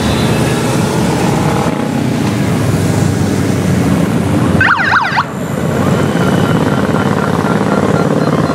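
A procession of motorcycles riding past one after another on a wet road, their engines running with tyres hissing on the wet surface. About halfway, a brief warbling siren yelp of fast rising and falling sweeps sounds for about half a second.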